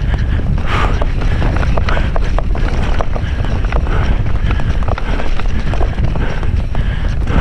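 Wind buffeting the microphone and a mountain bike's tyres rumbling over a dirt trail at speed, with frequent short rattles and knocks from the bike over the bumps.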